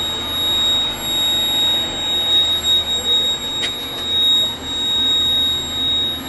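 Over-voltage alarm buzzing with a steady, high-pitched tone that does not let up: it signals an over-voltage condition in the repeater shack's equipment that is awaiting repair.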